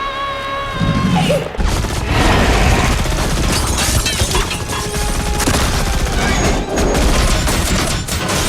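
Action film sound mix: a held, high-pitched cry that breaks off about a second in, then a dense run of crashes and impacts over a music score.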